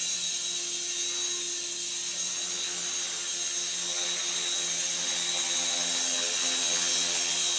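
Align T-Rex 450 Pro electric RC helicopter hovering: the steady high-pitched whine of its brushless motor and drive gears over the hum of the spinning rotor blades.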